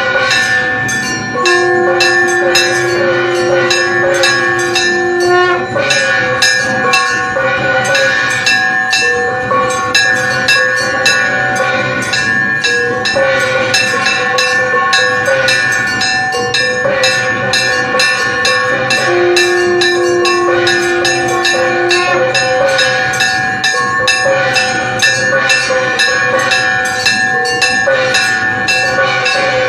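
Temple puja music: bells and percussion struck in a fast, steady rhythm with a continuous ringing clang. A horn-like wind instrument plays over it, holding a long low note twice.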